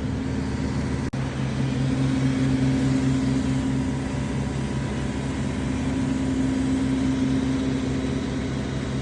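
Truck engine idling steadily, with a brief break about a second in.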